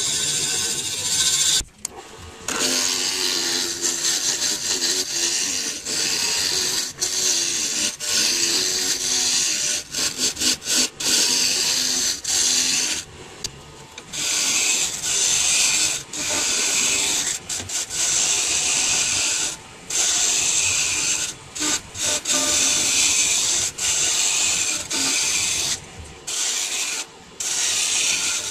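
Hardwood turning on a midi lathe, worked against a tool or abrasive: a steady scraping hiss over a faint wavering hum, cut off abruptly many times.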